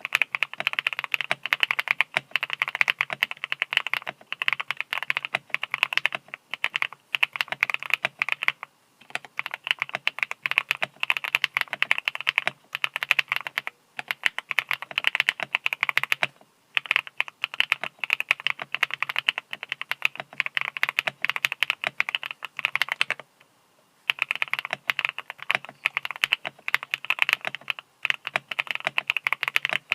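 Fast typing on a JamesDonkey A3 mechanical keyboard, a gasket-mount build with a polycarbonate plate and hot-swap switches. Runs of quick keystrokes are broken by a few short pauses.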